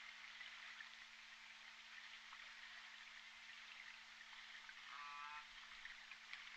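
Faint underwater hydrophone background of hiss and light crackle with a steady low hum, and about five seconds in one short call from a J pod orca (southern resident killer whale).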